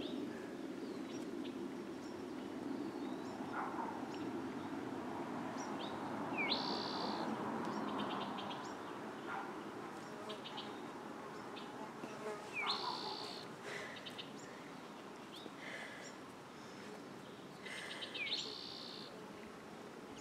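Songbirds calling, one repeating the same short phrase three times, about every six seconds, with scattered chirps over a steady low hum.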